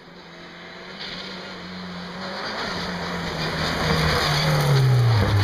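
Peugeot 207 rally car's engine approaching at speed and growing steadily louder, its note stepping through gear changes. It is loudest about five seconds in as it passes, then the pitch drops sharply.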